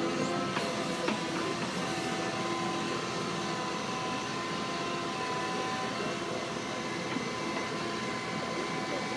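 Caterpillar excavator running, its engine and hydraulics giving a steady noise with a held whine on top while the boom and bucket swing.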